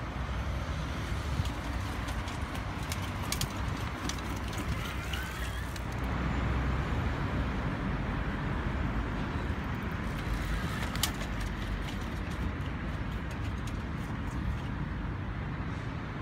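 Outdoor street ambience: a steady low traffic rumble, with a few sharp clicks and some brief bird chirps.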